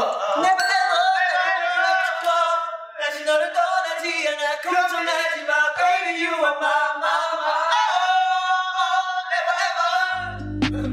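Young men's voices singing unaccompanied, a cappella, with held and gliding notes. Near the end, recorded music with a deep bass cuts in.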